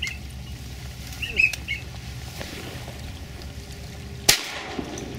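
A single shotgun blast about four seconds in, the first of three shots fired at passing ducks, over a steady low rumble. A brief high chirp sounds about a second and a half in.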